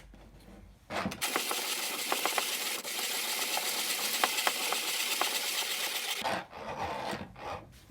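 Dienes 'Solida' 613 manual conical burr coffee grinder being cranked, with its burrs set just touching: coffee beans crackle and crunch between the burrs in a dense run of rapid clicks. It starts about a second in and drops off to a quieter rattle about six seconds in.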